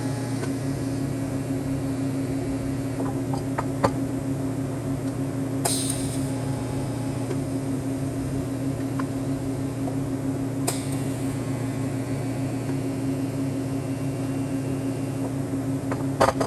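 A steady machine hum, unchanging throughout, with a few short sharp clicks or taps: a cluster about four seconds in, single ones around six and eleven seconds in, and a double click near the end.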